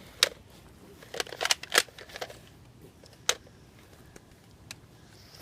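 About seven scattered sharp clicks and taps, short and spread unevenly, against a quiet background.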